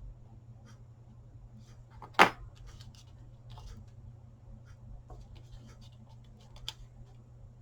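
Paper being handled and pressed down on a craft table, with small clicks and rustles, one sharp knock about two seconds in and a smaller click near the end, over a steady low hum.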